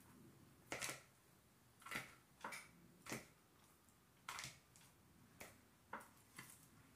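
Kitchen tongs clicking and fried chicken strips being set into a plastic mixing bowl: a scattered string of about nine light clicks and knocks.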